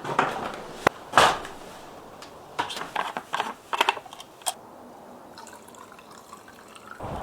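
A carving blade shaving wood by hand: a series of short cutting strokes, bunched between about 2.5 and 4 seconds in, with a few sharp clicks. It quiets down after about 5 seconds.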